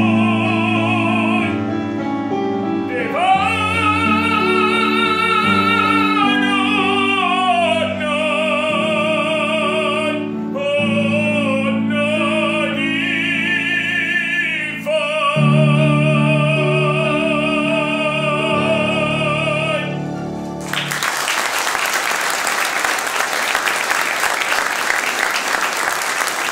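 A man singing an operatic solo with wide vibrato over piano accompaniment, closing on a long held note about twenty seconds in. Applause follows for the last few seconds.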